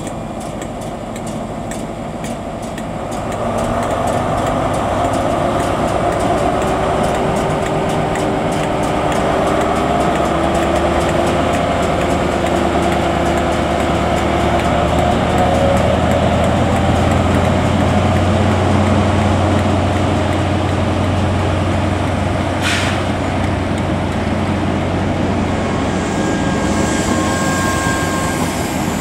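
Diesel engine of a Class 43 HST power car working under power as the train pulls away from a standstill: a steady low drone with a few held tones, growing louder about three and a half seconds in. A brief sharp noise cuts in about 23 seconds in, and the coaches roll by near the end.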